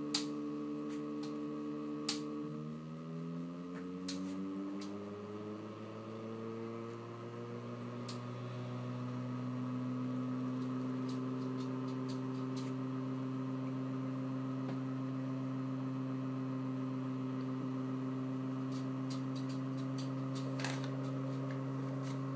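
Steady electrical hum of a pulse-driven magnet rotor and its drive coils running. Its pitch shifts over several seconds, a few seconds in, as the running changes, then settles into a steady hum. There are a few faint clicks.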